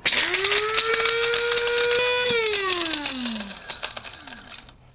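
Electric blade spice grinder grinding whole star anise: the motor whines up to speed, runs steadily for about two seconds with the rattle of spice pieces against the blade and bowl, then winds down in a falling whine once released.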